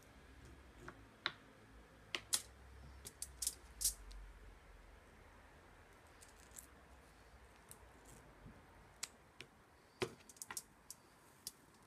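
Faint, irregular clicks and snips of kitchen scissors cutting small smelt, with light taps as the fish are handled on a plastic cutting board. The clicks come in a cluster a few seconds in and again near the end.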